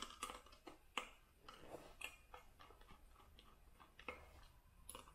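Faint, irregular clicks and scrapes of a small Phillips screwdriver turning the screws of a panel on a diode laser module's aluminium housing.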